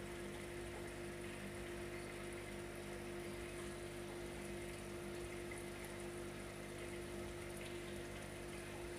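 Steady hum of an aquarium air pump with the water bubbling of the sponge filters it drives, unchanging throughout.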